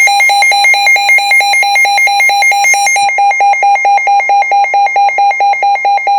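Weather radio receiver's alert alarm beeping rapidly and evenly, about five buzzy beeps a second, signalling an incoming warning.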